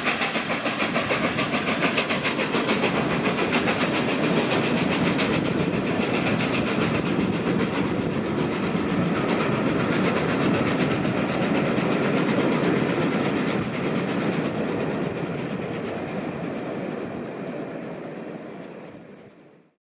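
Flying Scotsman, an LNER A3 three-cylinder 4-6-2 steam locomotive, working its train away along the main line. Its exhaust beats about three times a second at first, under a steady rumble of the coaches and clicking of wheels on the rails. The sound slowly fades as the train draws away, then cuts off sharply just before the end.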